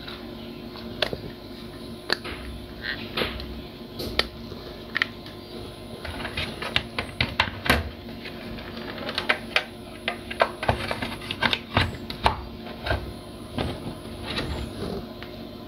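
Irregular small clicks and taps, thickest in the middle, from a plastic plug-in power adapter being handled, over a faint steady hum.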